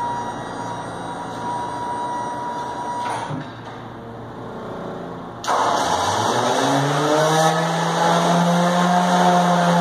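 A motor starts about halfway through, its hum rising in pitch for a couple of seconds and then running steady; before it, a thin steady whine over background machine noise.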